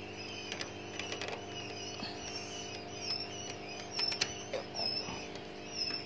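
Wire cage bars rattling and clicking in scattered knocks as an owl clinging by its claws is worked loose, over a steady low hum and faint high squeaky chirps.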